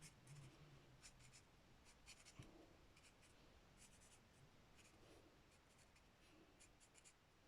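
Faint, quick strokes of a felt-tip alcohol marker (a darker Stampin' Blends) scratching across cardstock as the leaves are coloured in.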